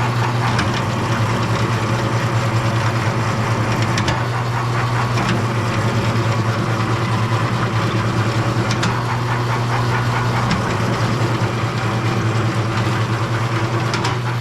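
Electric wire-stripping machine running steadily with a low hum and a fast flutter as SO cable is fed through it, with a few light clicks.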